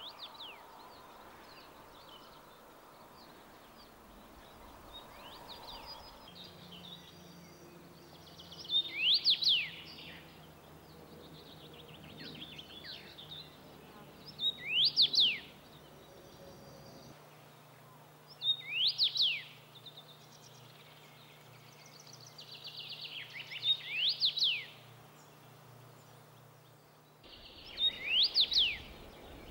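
Adult male common rosefinch singing its short whistled song five times, about every five seconds, each phrase a few clear sliding whistles. Fainter chirping comes between the songs.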